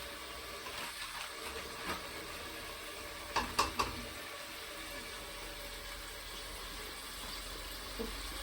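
Food sizzling in a pan, a steady hiss, with three quick clinks about three and a half seconds in.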